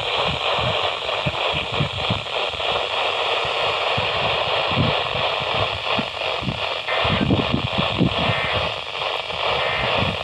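Static from a NOAA Weather Radio receiver: a steady hiss with irregular low thumps under it.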